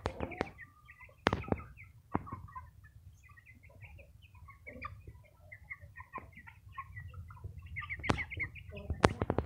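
A flock of young Brahma-type chickens cheeping in short, high, repeated notes, with sharp clicks now and then, the loudest about a second in and near the end.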